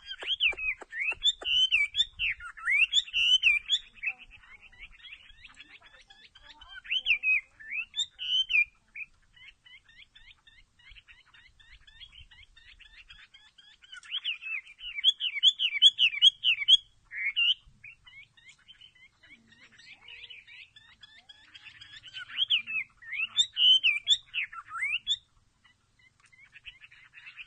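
A bird chirping and twittering in loud bursts of a few seconds, with quick rising and falling notes, and softer chatter in the gaps between.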